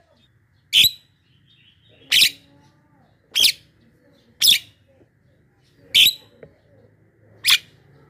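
Javan myna giving six short, sharp calls, evenly spaced about a second to a second and a half apart.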